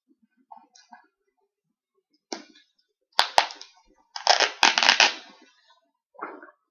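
Packing material being pulled off a mailed package: bursts of rustling and crinkling, with two sharp clicks about three seconds in and the loudest crinkling a second later.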